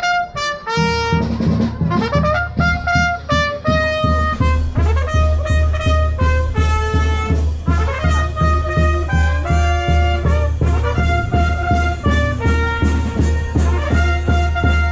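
Street brass band playing a march: trumpets carry the tune in held notes over a steady, even bass beat.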